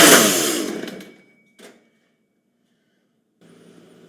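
Chainsaw engine cutting out, its running noise sinking in pitch and fading away over about a second: the saw has stalled. A single sharp click follows, then near silence.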